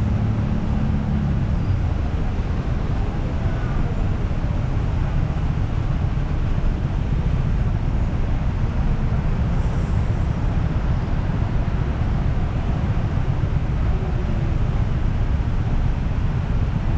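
Busy city street traffic: a steady low rumble of passing vehicles.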